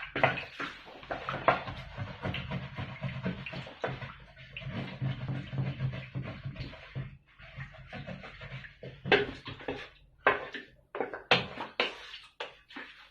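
Kitchen handling noises: irregular clicks, knocks and scraping of utensils and cookware, with a faint steady low hum underneath.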